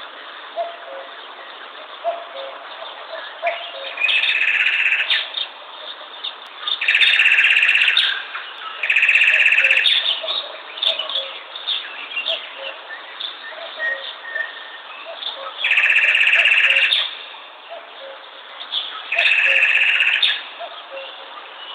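Common cuckoo repeating its two-note 'coo-coo' call, falling from the higher note to the lower, with other birdsong around it. Five loud, buzzy trills about a second long stand out, two close together in the middle.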